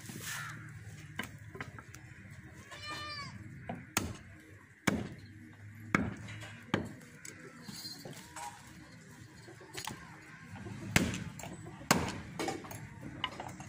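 Cleaver chopping goat meat and bone on a wooden log block: about half a dozen sharp chops at uneven intervals, the loudest about eleven seconds in. A short animal call about three seconds in.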